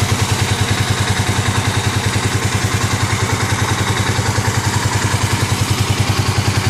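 Kawasaki KLX250S single-cylinder four-stroke engine, newly fitted with a 300 cc big-bore kit, idling steadily on its first run after the rebuild, with even exhaust pulses about ten a second.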